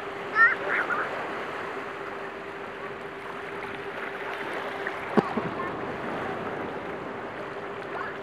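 Steady wash of shallow sea water around waders, with a faint steady hum beneath it. A child's short high squeal about half a second in, and a single sharp knock about five seconds in.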